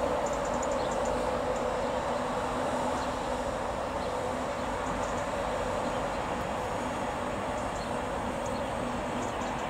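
Class 91 electric locomotive moving slowly with a train of coaches, giving a steady mechanical hum and rumble with a low drone underneath.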